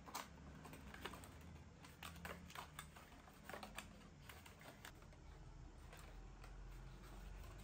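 Faint, irregular clicks and taps of thin cardboard packaging being handled: a product box and its folded card insert.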